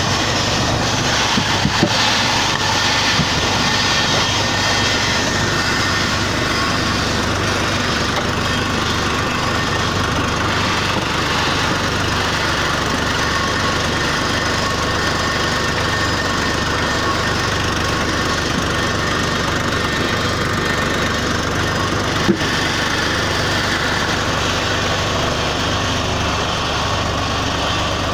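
Small clay brick extruder machine running steadily, with a single sharp knock late on.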